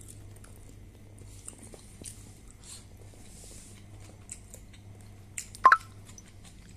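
A person chewing a mouthful of beetroot poriyal, with soft small clicks of the jaw and mouth over a low steady hum. A single short, louder squeak-like sound comes near the end.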